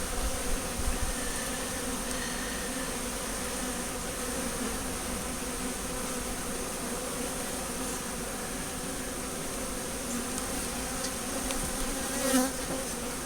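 Swarm of honeybees buzzing in a steady, dense hum around an open hive just after a package install, with a brief louder bump near the end.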